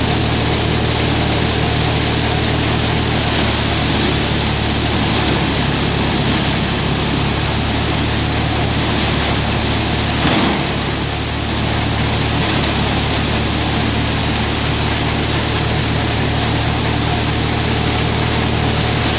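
Tractor-driven paddy thresher running steadily under load as rice straw is fed in: a loud, dense threshing and blowing noise over the steady low hum of the tractor's diesel engine, with one brief knock about ten seconds in.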